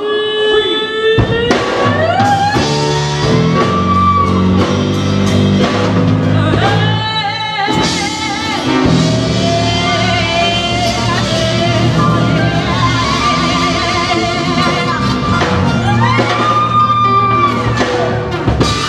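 Live blues played by a small band: a woman sings long, wavering, gliding lines over electric bass, drum kit, guitar and keyboard. A held sung note opens the passage, and the full band comes in about a second and a half in.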